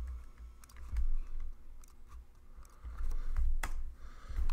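A few scattered clicks of a computer mouse and keyboard, the sharpest about three and a half seconds in, over a low steady hum.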